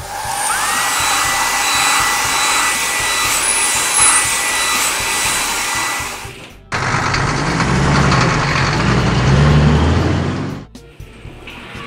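Cartoon car-wash machine sound effect: a whirring, blower-like hiss with a whine that rises quickly and then holds steady, cut off after about six and a half seconds. Then about four seconds of hissing noise over a low rumble as the cartoon dump truck rolls off the wash line, ending abruptly.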